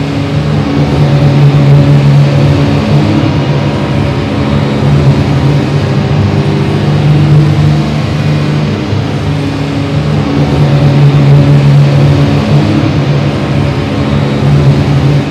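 Loud experimental noise drone from radio receivers and electronics played through a PA: a dense deep hum with crackling hiss above it, swelling and easing every few seconds.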